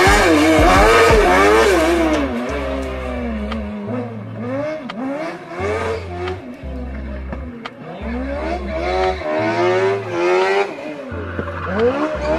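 Engine-swapped Trabant race car driven hard, its engine revving up and dropping back over and over through gear changes. It is loud for the first two seconds as it passes close, fades as it pulls away, and swells again later.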